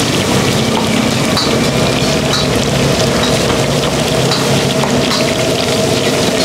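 Hot oil in a deep fryer sizzling steadily, with scattered small ticks, over a steady low hum.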